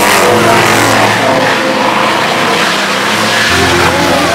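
Car engines revving and running loud, with a steady hiss over them.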